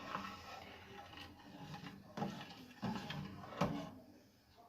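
Spoon stirring a thickened soup in a cooking pot, knocking against the pot a few times over a low scraping and clatter.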